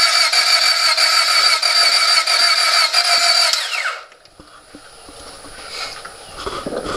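2000 Honda Civic's starter motor cranking the four-cylinder engine with a steady whine for about four seconds without the engine catching, then winding down and stopping. It is a no-start: the engine turns over but will not fire.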